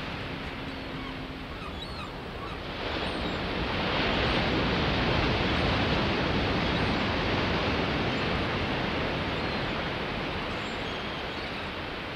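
Audience applause, a steady clatter of many hands that swells about three seconds in and holds.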